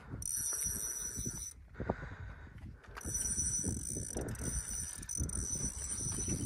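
Fishing reel being cranked to bring in a hooked fish, with a mechanical rattling and clicking. A steady high-pitched whine comes and goes, stopping briefly around a second and a half in.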